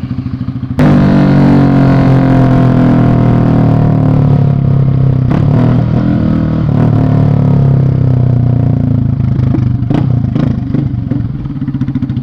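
Yamaha Fazer 250's single-cylinder engine through a loud exhaust, suddenly opening up about a second in and running hard under acceleration, then easing off slightly near the end.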